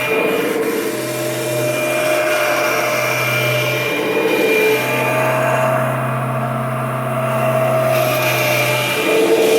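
Kirby Generation 4 upright vacuum cleaner running: a steady motor whine over a strong low hum, and the hum drops out briefly a few times.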